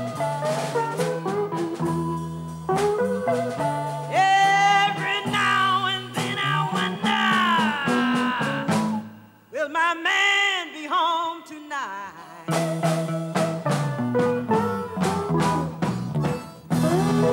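Live Chicago blues: a woman sings a slow blues over electric guitar, electric bass and drums. Near the middle the band drops out for a couple of seconds while she sings alone, then comes back in.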